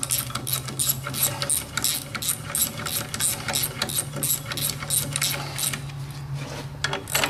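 Socket ratchet clicking at a steady pace, about four clicks a second, as the 8 mm pressure-plate bolts of a VW 1600 clutch are run down onto the flywheel; the clicking thins out near the end. A steady low hum runs underneath.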